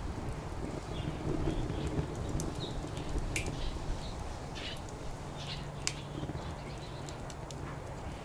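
Wood fire crackling in a fire pit, with scattered sharp snaps and pops, over a steady low rumble of distant traffic.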